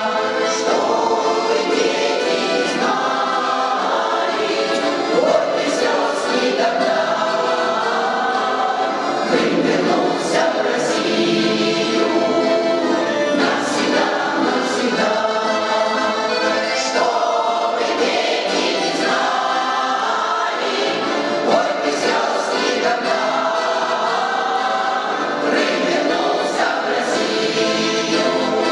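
Choir singing a song with musical accompaniment, sustained and continuous.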